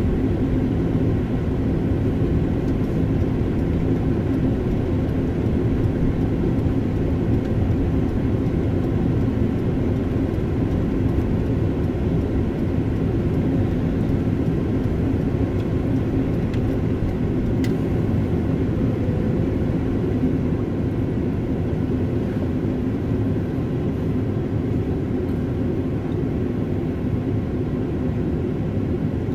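Steady low rumble of road and engine noise heard inside a car's cabin while driving.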